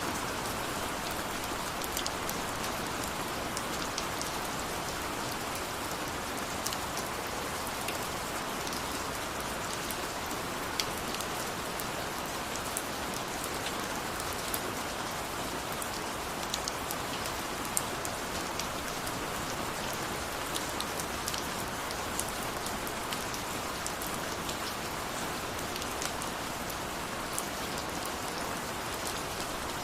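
Steady rain falling as an even hiss, with scattered sharp ticks of single drops striking close by.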